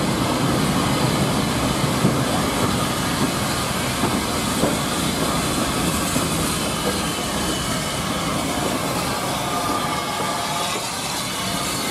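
Steam locomotive and its carriages rolling slowly past at close range as the train draws into the platform: steady wheel rumble with small knocks over the rail joints, and steam hissing.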